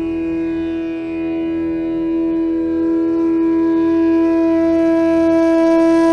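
Background Indian instrumental music: a wind instrument holds one long steady note over a low drone.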